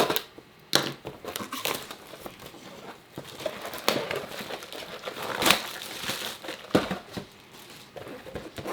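Plastic wrap on a trading-card mega box crinkling and tearing as the box is unwrapped and opened by hand: irregular rustles with several sharper crackles.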